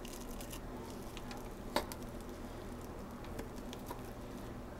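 Faint handling noise of a metal spoon scooping soft cookie dough off crinkly plastic wrap, small scattered ticks and crackles with one sharper click about two seconds in, over a low steady hum.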